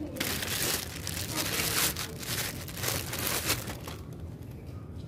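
Plastic wrapping crinkling and rustling in irregular bursts while a motorcycle side mirror is handled, fading out about four seconds in.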